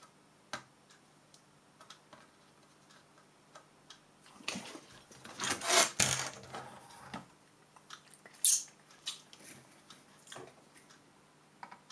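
A computer motherboard being handled on a desk and turned over: a rustling scrape lasting a couple of seconds about halfway through, then a sharp knock as it is set down, followed by a few light clicks.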